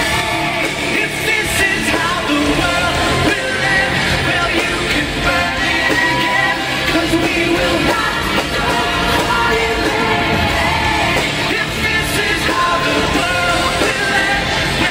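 Hard rock band playing live and loud, with a lead singer's vocals and backing singers over the band.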